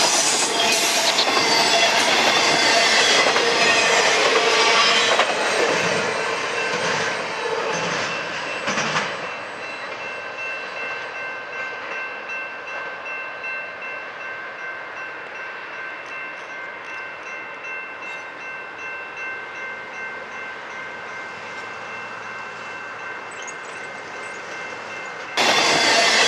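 Double-stack intermodal freight cars rolling past close by, the wheels clattering on the rail joints with some high wheel squeal. About nine seconds in this gives way to a railroad crossing's warning bell ringing steadily while the train's rumble sounds distant. Near the end the loud close rolling of the container cars returns suddenly.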